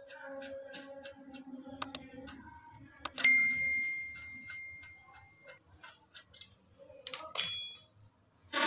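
A screwdriver clicking and clinking against the metal valve housing of a Butterfly gas stove as it is taken apart. About three seconds in, a sharp metal strike rings on like a bell for about two seconds. A second clink with a shorter ring comes about seven seconds in.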